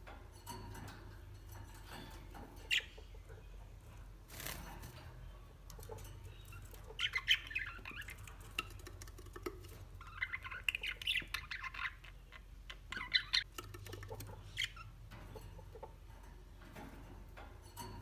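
Budgerigar chicks in the nest making short cheeping calls in scattered bursts, busiest around the middle, over a low steady hum.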